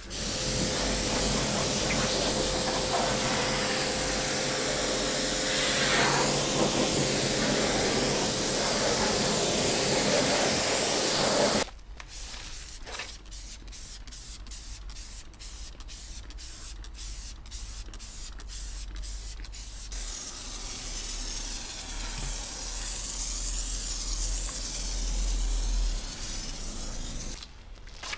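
Pressure washer spraying water onto a car, a loud steady hiss over a faint motor hum, cutting off abruptly about twelve seconds in. A run of sharp clicks follows, then a softer spray for several seconds near the end.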